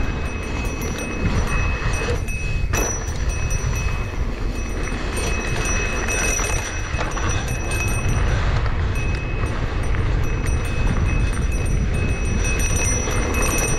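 Loud, continuous rattling rumble of a fast run down a rough downhill course, with wind buffeting the microphone and a steady thin high whine throughout.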